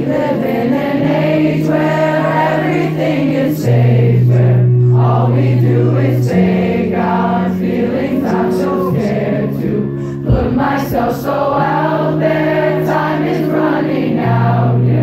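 Live pop song with held low notes changing every couple of seconds under a lead singer and many voices singing. The music drops out briefly with a low hit about ten seconds in, then resumes.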